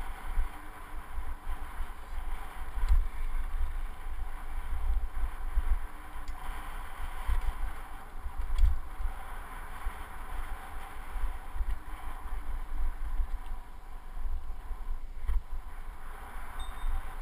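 Wind buffeting a handlebar-mounted action camera's microphone on a mountain bike moving fast down dirt singletrack, a gusty low rumble over the hiss of knobby tyres on dirt. A few sharp clicks and rattles from the bike come through over the bumps.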